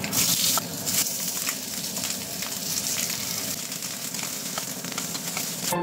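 Pork feet sizzling in a hot stainless steel wok: a steady hiss with many sharp crackles throughout.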